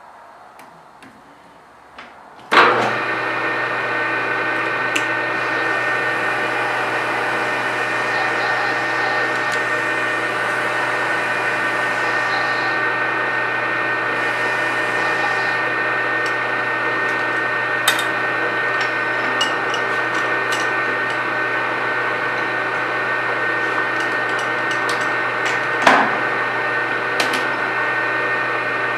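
Metal lathe switched on with a clunk about two and a half seconds in, then running steadily with a whine of several held tones as a tailstock cutter cuts the crown on a muzzle brake. A few sharp clicks, the loudest near the end.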